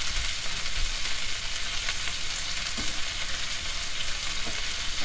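T-bone steak sizzling steadily in a frying pan, the gas flame turned down to low for butter basting.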